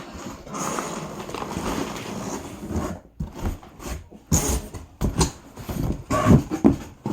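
Cardboard shipping box being opened and handled: a rustling, scraping stretch, then a run of separate knocks and thumps from about three seconds in.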